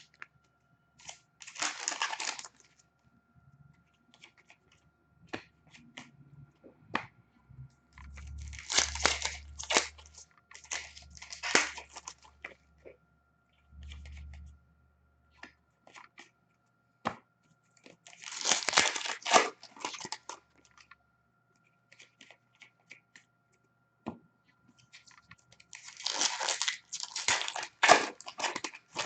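Hockey card packs being torn open: foil wrappers ripping and crinkling in about five bursts, with small clicks and rustles of handling between them.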